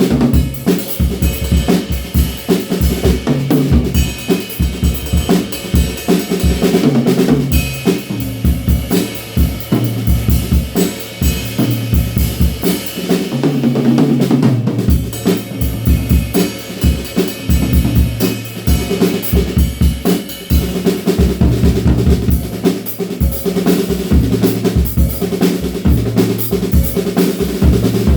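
DW Frequent Flyer drum kit played continuously: bass drum, snare and toms in a rock beat. The snare is a Tama SLP with loosened snare wires and a Fat Rock muffling ring on it.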